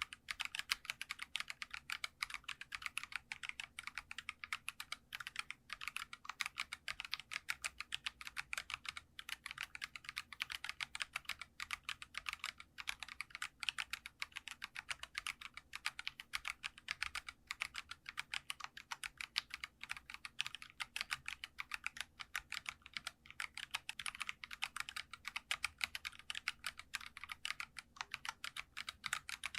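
Geekstar mechanical keyboard being typed on in a fast, continuous stream of light, clacky keystrokes (the 'dogak-dogak' sound).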